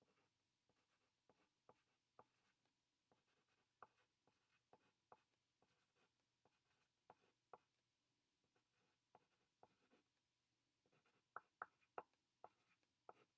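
Faint sounds of handwriting on paper: scattered light taps and scratches of a writing tip, with a quicker run of sharper ticks near the end.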